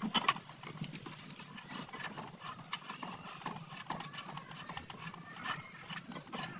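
Irregular light knocks and clicks of tools and parts being handled, over a low steady hum.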